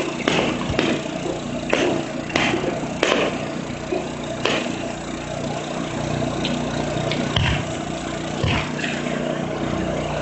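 Fireworks shells bursting: a string of sharp bangs, close together in the first three seconds and more spaced out after, over a steady low hum.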